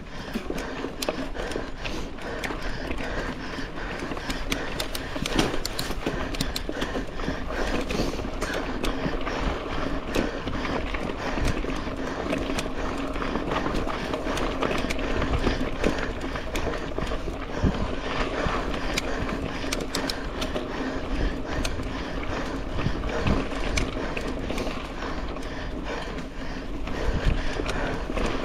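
Mountain bike ridden hard along a dirt race trail: tyres rolling over dirt with a steady hum, and the chain and frame rattling in a constant run of small clicks and knocks.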